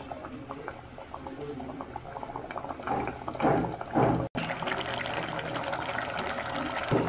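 Amaranth leaf curry simmering in a pan, its thick gravy bubbling and popping as it reduces to thicken, swelling louder about three to four seconds in.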